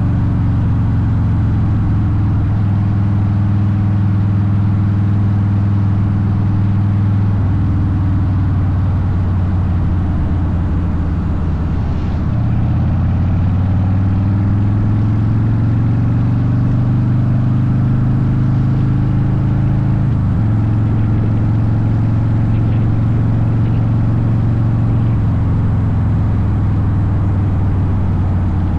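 Harley-Davidson Softail Deuce's air-cooled V-twin running under way through Vance & Hines pipes. The note climbs slowly and steps down or up several times, as the throttle and gears change.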